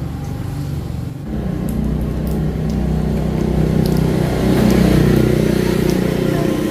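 An engine running with a steady low drone that grows louder about a second in and eases off near the end.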